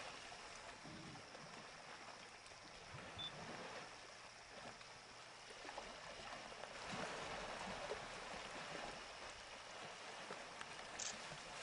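Faint sloshing and splashing of water from elephants swimming, a little louder about seven seconds in.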